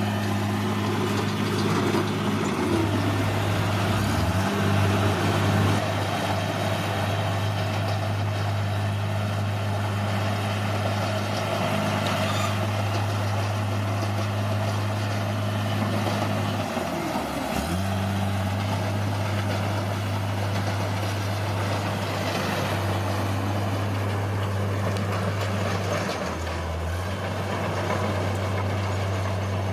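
Bulldozer's diesel engine running steadily, its pitch dipping briefly three times: about two seconds in, past the middle, and near the end.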